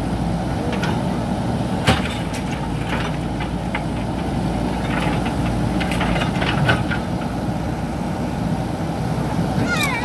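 JCB 3DX backhoe loader's diesel engine running steadily as the backhoe bucket digs into brick rubble, with scattered knocks and clatters of broken bricks, the sharpest about two seconds in and a cluster between five and seven seconds.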